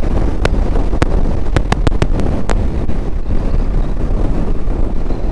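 Wind buffeting the microphone over the low rumble of a Bajaj Dominar 250 motorcycle on the move, with several sharp clicks in the first half.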